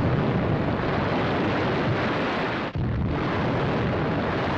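Explosions and fire of factories and fish-oil tanks being blown up: a continuous heavy rumble, broken by a sudden short drop about two and a half seconds in, then going on as before.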